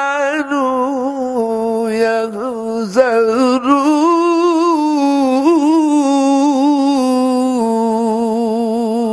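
A man chanting in long, held melodic phrases, his pitch wavering on each sustained note.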